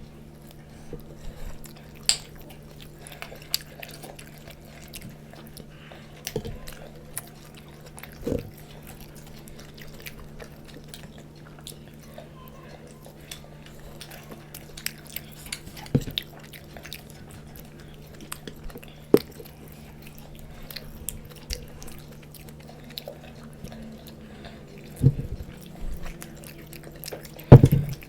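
People chewing and biting into momos and Maggi noodles close to the microphone: wet mouth sounds with scattered sharp clicks and smacks, a few louder ones near the end, over a steady low hum.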